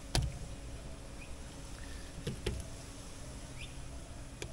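A few light knocks and taps from hands and a tool working on the aluminium canopy and its insulation: one just after the start and a pair a little past two seconds. Two faint short rising chirps come in between, over a low steady background.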